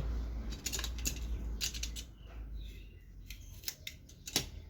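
A small cutting tool snipping heat-shrink tubing for insulating a blender's motor fuse: a knock right at the start, then a scattered series of short, sharp snipping clicks.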